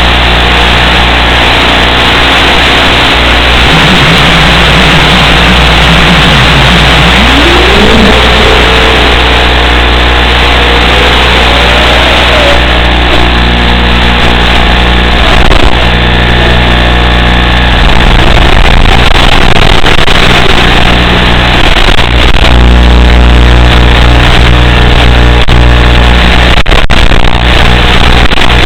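Loud steady static hiss with a low electrical hum, as carried on the audio channel of an analog FPV video link. Several seconds in, a faint tone glides upward and then levels off.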